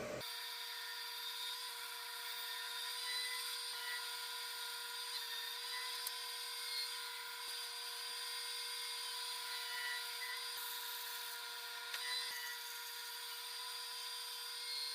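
Bandsaw running steadily, cutting through wood, with a constant motor tone.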